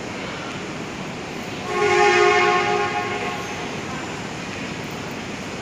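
A train horn sounds once, a steady multi-tone blast of about a second and a half, starting about two seconds in, over the steady hum of a station hall.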